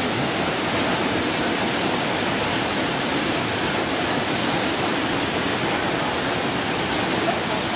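Muddy floodwater rushing across a road in a flash flood, a steady, even rushing noise with no break.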